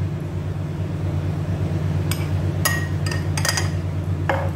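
A metal spoon clinking against a small glass jar several times, starting about two seconds in, with a last knock near the end. A steady low hum runs underneath.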